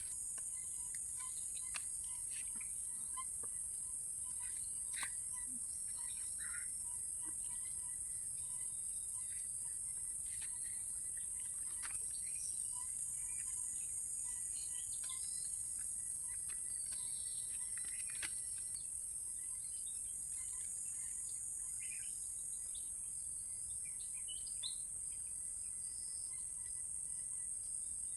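Steady high-pitched drone of insects, like crickets, with scattered short bird chirps and a few faint clicks.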